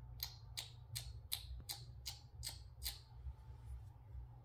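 A person making quick, evenly spaced clicks, about eight in a row at two or three a second, stopping about three seconds in, to coax a cat's attention.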